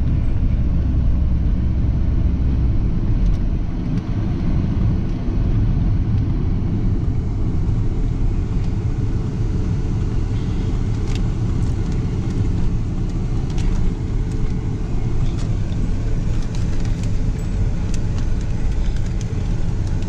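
Truck driving along a road, heard from inside the cab: a steady low rumble of engine and road noise.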